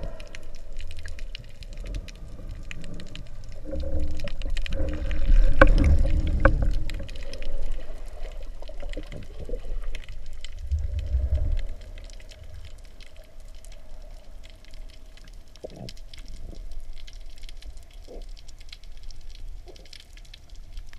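Underwater sound through the camera housing on a speargun: low rumbling water movement, loudest a few seconds in and again around the middle, over a faint steady hum and scattered small clicks.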